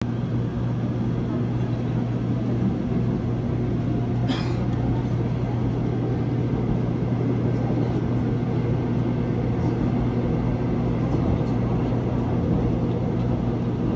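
Seoul Subway Line 1 express electric train running along the line, heard from inside the front car: steady running noise under a constant low hum. A brief sharp sound cuts through about four seconds in.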